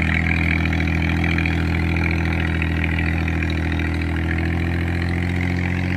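Mahindra 265 DI tractor's three-cylinder diesel engine running steadily while it pulls a disc harrow through the soil.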